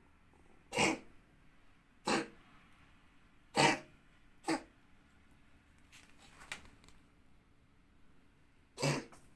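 Oriental shorthair cat coughing in a fit: five short, sharp hacking coughs spaced a second or more apart, with a long pause before the last. These are recurring coughing and retching attacks, as if the cat is trying to bring something up, and their cause is unknown.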